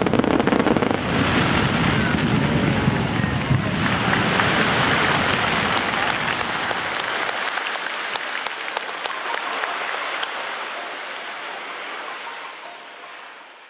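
Dense crackling hiss of a fireworks display's falling trailing stars. The low rumble drops away about halfway through and the sound fades out near the end.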